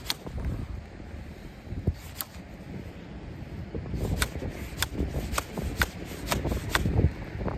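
Flint knapping: a hard hammerstone striking the edge of a flint hand axe, giving about nine sharp clicking knocks. They are sparse at first, then come about two a second from around four seconds in.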